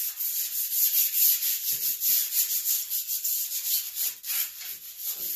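Sandpaper rubbed by hand in quick back-and-forth strokes over the painted steel top of a John Deere 54-inch mower deck, smoothing the rough, rusty patches so new primer and paint will hold.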